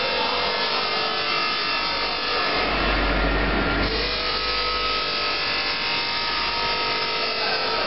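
LW25-80 chain link fence machine running, weaving wire into diamond mesh: a steady mechanical rasping noise with several constant humming tones.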